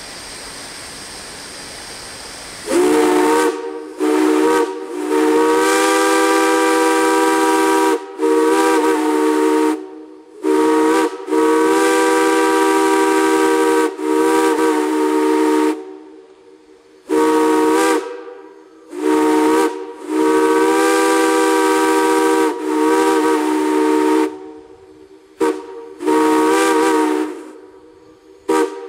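Chime steam whistle sounding a chord of several notes together, blown in about a dozen blasts of varying length, some short and some held for a few seconds. It opens with a couple of seconds of rising steam hiss before the first blast.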